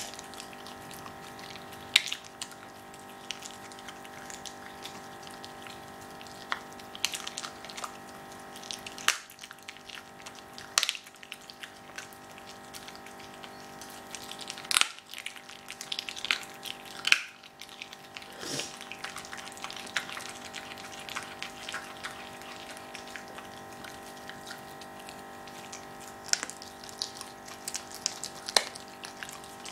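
A Jack Russell terrier chewing a raw squirrel carcass with its guts intact: irregular wet smacks and crunches of meat and small bones, some louder than others, over a steady hum.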